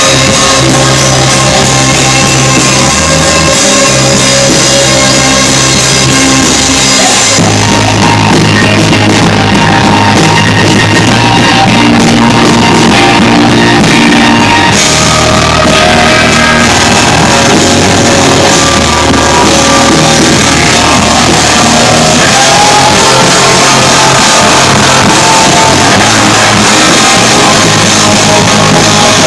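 A live rock band playing loud, with guitars, bass and drums and vocals over them, the bass line moving between held notes.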